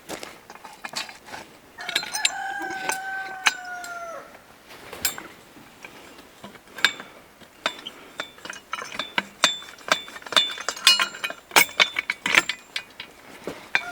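A rooster crows once, a long call of nearly three seconds. It is followed by a long run of irregular sharp clicks and knocks.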